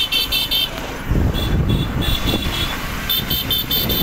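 Motorcycle riding over a rough dirt track, with engine and road rumble that grows louder about a second in. Over it come runs of rapid, high-pitched chirping pulses, about five or six a second.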